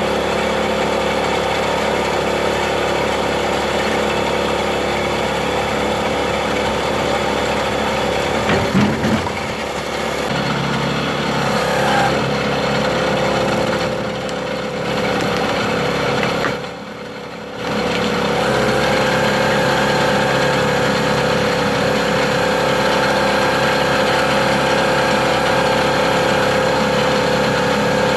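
Small engine of a log splitter running steadily, driving its 13 gpm two-stage hydraulic pump. The engine note wavers and briefly gets louder about a third of the way in, and the sound drops for about a second a little past the middle.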